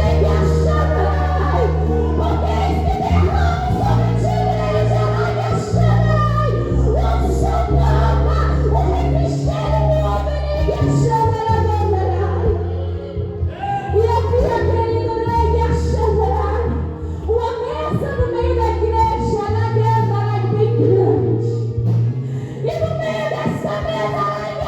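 Worship music: singers over a band with a steady sustained bass line.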